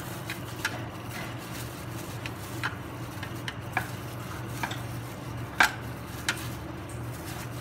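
Scattered light clicks and taps of kitchen utensils and dishes being handled, the loudest about five and a half seconds in, over a steady low hum.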